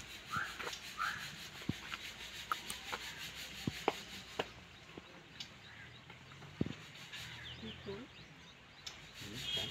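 Quiet outdoor sound with scattered small knocks and rubbing, and a couple of short bird chirps in the first second.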